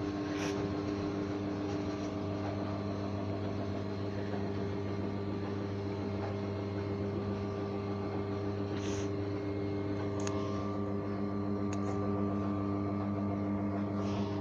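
Electric stairlift drive motor running with a steady hum as it carries the chair up the stair rail. A few faint clicks come in the second half.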